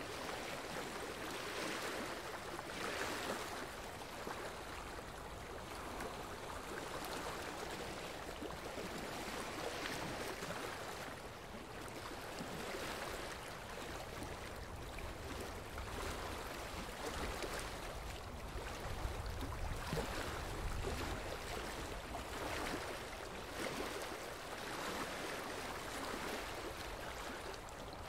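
A steady rushing sound like running water, swelling and easing every few seconds, with a deeper low rumble about two-thirds of the way through.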